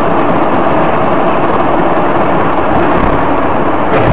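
Steady rushing noise of a car driving on a snowy road, tyre and engine noise heard from inside the cabin through a dashcam microphone.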